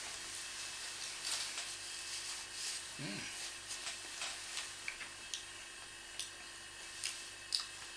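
Quiet room with a steady low hum and hiss, and small clicks and rustles of eating at a table and handling a paper napkin. A short hummed "mm" comes about three seconds in.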